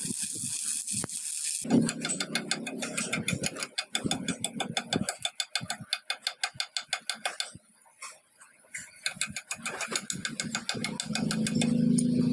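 Electric arc welding crackling on a vehicle axle shaft for about the first second and a half, then stopping. After it comes a fast, even run of metallic clicks, several a second, broken by a pause of about a second near the middle.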